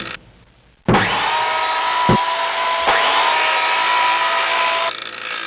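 A power tool running loud and steady, as when cutting wood, starting abruptly about a second in, with a couple of sharp knocks partway through, and easing off near the end.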